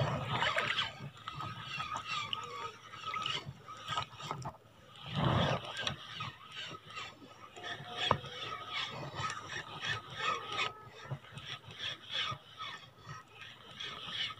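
Kastking Royale Legend II spinning reel being cranked to retrieve a lure, a faint steady whine from the turning reel, with wind gusting on the microphone about five seconds in and a sharp click about eight seconds in.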